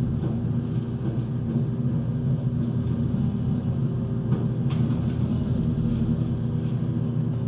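Stump grinder's engine running steadily at working speed, a constant drone with a couple of faint clicks about halfway through.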